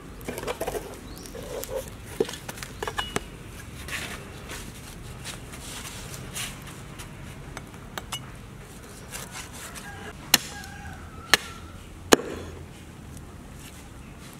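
Meat cleaver chopping through bony meat on a wooden chopping board, with lighter knocks and handling sounds at first. Then come three sharp, loud chops about a second apart near the end.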